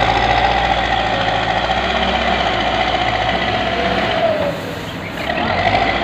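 Bull HD76 backhoe loader's diesel engine working hard with a steady whine. The whine sinks and drops away briefly about four and a half seconds in as the load eases, then picks up again as the front loader bucket is raised.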